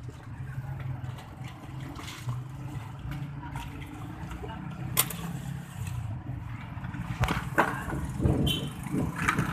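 A steady low motor hum, with a sharp click about halfway through and a cluster of knocks and rustles near the end as bicycle parts and cardboard packing are handled.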